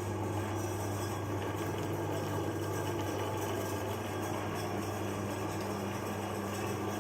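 Electric meat grinder motor running with a steady, even hum.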